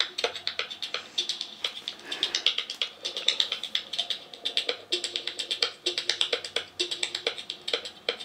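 Music with fast, clicky percussion and pitched notes played through a small 5 cm, 0.5 W mini loudspeaker. It sounds thin, with almost no bass.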